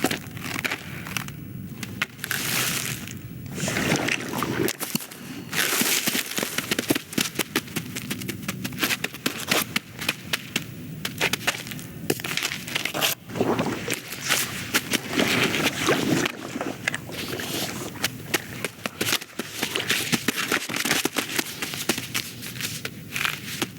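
Animated-film foley track of many small clicks, crackles and rustles coming in short, uneven flurries, with no music or dialogue.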